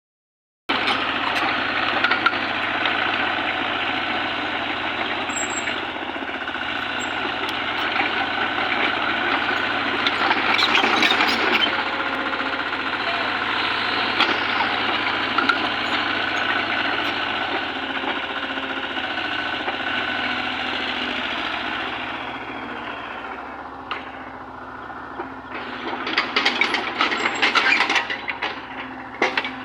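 Excavator engine running steadily under load, easing off about twenty-two seconds in. Near the end it gives way to a run of irregular sharp knocks.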